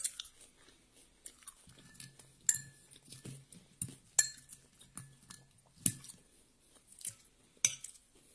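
A metal spoon clinks against a ceramic bowl of fried rice four times, about every second and a half to two seconds, as rice is scooped up. Each clink rings briefly, with quieter scraping and chewing sounds between them.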